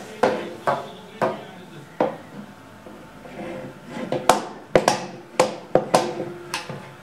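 A toddler beating a small red toy drum with a drumstick: about ten uneven, sharp strikes with short pauses, coming quicker past the middle.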